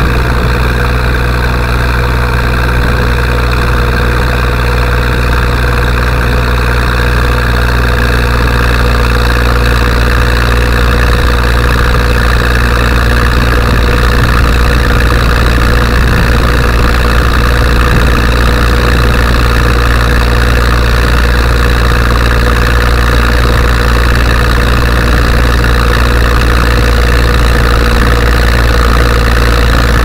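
Zetor 5211 tractor's three-cylinder diesel engine running steadily at road speed while pulling a load of wood, heard close to the upright exhaust pipe.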